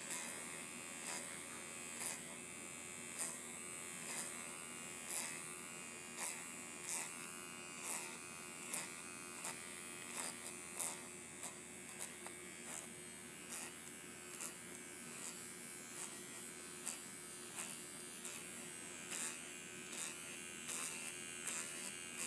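Vibrating facial roller buzzing steadily as it is rolled over skin covered in a wet face mask, with a short click about once a second.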